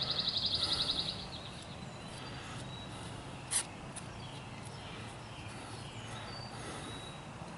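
A high, rapid trill of an animal call, lasting about the first second. After it comes a faint steady low hum, with one sharp click about three and a half seconds in.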